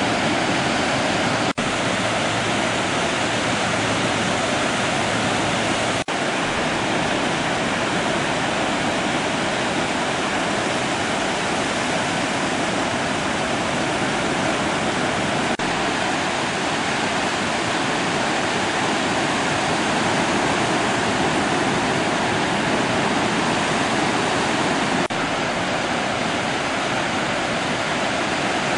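Steady, loud rushing noise of wind and surf on the microphone, even and without swells, with brief dropouts about a second and a half in and again about six seconds in.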